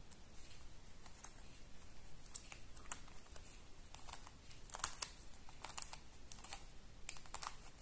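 Master Morphix, a plastic 3x3 shape-mod twisty puzzle, being turned by hand: an irregular run of quick plastic clicks and clacks as its layers turn, with the sharpest click about five seconds in.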